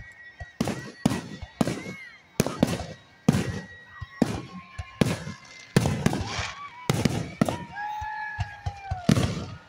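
Aerial firework shells launching and bursting in an irregular rapid series of about a dozen loud bangs, with a few long, steady high tones sounding between them.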